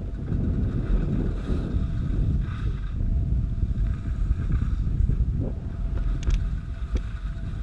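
Wind buffeting the microphone of a camera moving fast down a groomed ski slope, a steady low rumble, with the hiss of sliding over snow beneath it.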